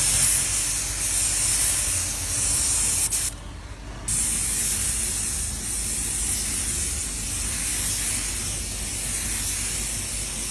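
Compressed-air paint spray gun hissing as paint is sprayed over a primed dent repair on a car panel. The trigger is released for about a second near the three-second mark, then spraying resumes.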